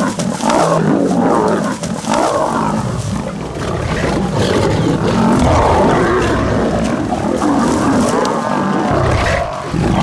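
A pack of lions fighting, several animals roaring and snarling at once in a loud, unbroken tangle.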